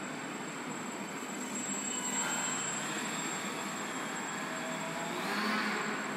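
Small electric motor and propeller of an indoor foam YAK-54 model airplane buzzing in flight, swelling with bursts of throttle about two seconds in and again near the end, where the pitch rises as it hangs on its propeller.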